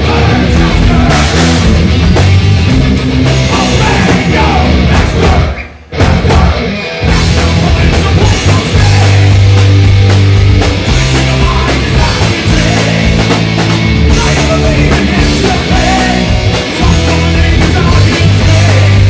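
Heavy metal band playing live, with electric guitar and drum kit. The music breaks off for about half a second around six seconds in, then the full band crashes back in.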